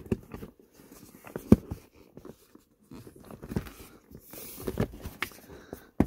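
Scattered knocks and taps of hands pressing and wiggling the plastic shift-boot trim surround against its clips in the console, the loudest about a second and a half in. The clips are not snapping home.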